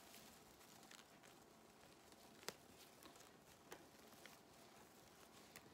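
Near silence, with a few faint soft clicks and rustles of hands tying ribbon to a pipe cleaner on decorative mesh; the clearest click comes about halfway through.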